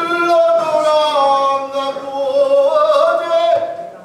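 Man singing pansori, holding long drawn-out notes that bend slowly in pitch and waver, fading near the end.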